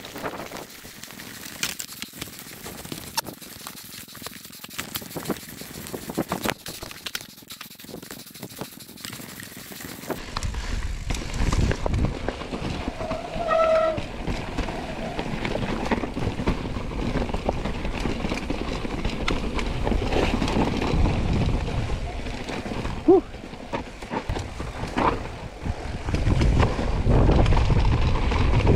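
Mountain bike riding down a trail: scattered clicks and rattles at first, then from about ten seconds in a louder, steady rumble of tyres over the ground with wind on the microphone. A short whistle-like tone sounds briefly near the middle.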